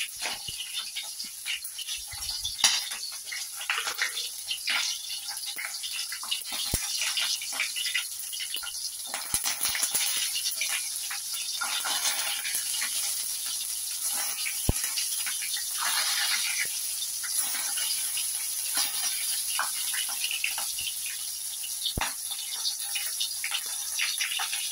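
Pork frying in hot oil in a wok: a steady sizzle with scattered crackles and pops.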